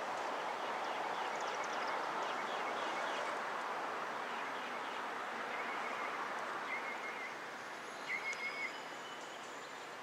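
Outdoor ambience: a broad rushing noise that slowly fades, with small birds chirping in short trills in the second half. No siren tone is heard.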